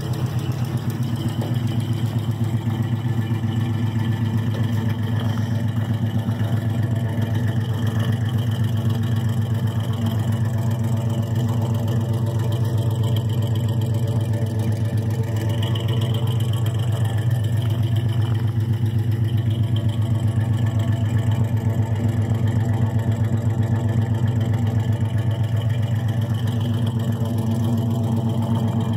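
Old Chevrolet pickup truck's engine running steadily at idle, a continuous low, even hum with no change in speed.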